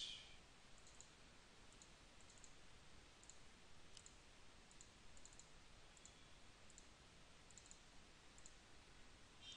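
Faint computer mouse clicks, single and in quick pairs, over a low steady hiss.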